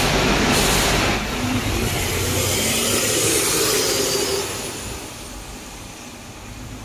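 Alexander Dennis Enviro500 MMC double-decker bus with a Cummins L9 diesel and Voith DIWA automatic gearbox, heard from the rear seats as it pulls in and slows. There are two brief bursts of hiss near the start, and the running noise falls away about four and a half seconds in to a quieter steady hum.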